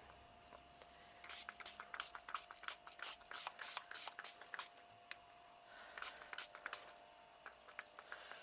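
Hand spray bottle of water squeezed over and over in quick short spritzes, a long run of them, then a pause, then a shorter run; the bottle's water is running low.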